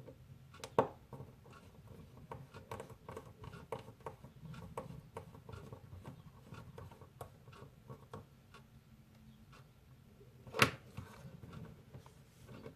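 Small irregular clicks and scrapes of a precision T3 Torx screwdriver tightening the tiny back-case screws of a Fitbit Blaze, with two sharper knocks, one about a second in and one near the end.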